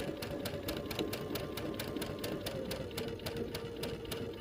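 Domestic sewing machine stitching a seam through cotton quilting fabric: a steady motor hum with even needle strokes, about six a second. The motor pitch drops slightly about three seconds in.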